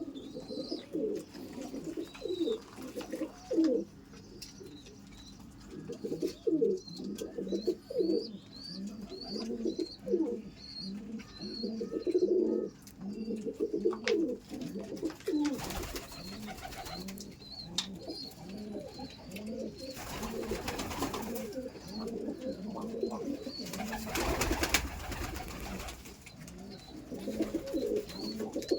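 Pigeons cooing over and over in low, repeated notes, with a faint series of thin high chirps above them. Three short bursts of noise come in the second half.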